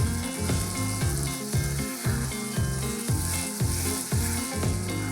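Chicken pieces sizzling in oil as they dry-roast in a pan on high flame, a steady frying hiss, under background music with a steady beat.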